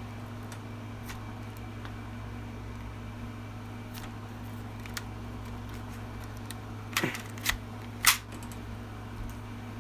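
Toy gun being handled and reloaded: a few light clicks, then a cluster of louder sharp clicks and rattles about seven to eight seconds in, over a steady low hum.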